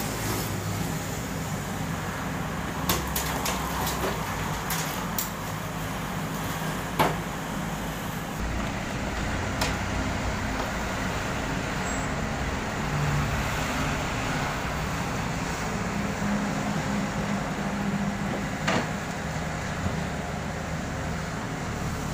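Komatsu PC78US mini excavator's diesel engine running steadily under hydraulic load as it swings and dumps soil into a dump truck, with a few sharp knocks and clanks of the bucket and falling rubble.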